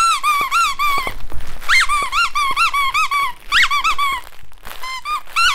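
Squeakers inside a plush black-cat dog toy squeezed by hand again and again: a quick run of short squeaks, several a second, each bending up and back down in pitch, broken by two brief pauses.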